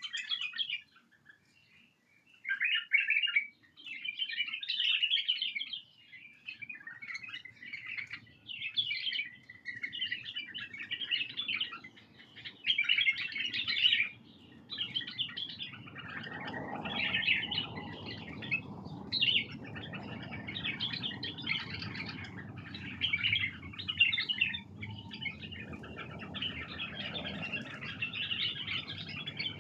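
White-eared bulbuls calling, short bursts of chattering chirps one after another. About halfway in a low rumbling noise joins underneath.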